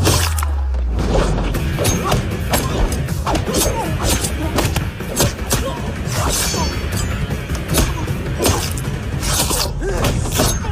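Action-film fight soundtrack: dramatic background music overlaid with a rapid, irregular series of punch and body-hit impact effects, opening with a deep boom.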